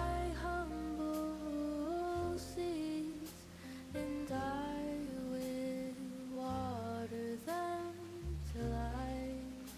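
Slow background music: a melody of held notes that glide between pitches, over sustained low bass notes.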